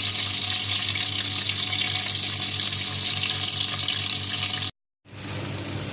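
Desi ghee sizzling in a kadai with whole cardamom, cinnamon and cloves, a steady hiss with a low hum under it. The sound cuts out for a moment near the end, then the sizzling returns quieter.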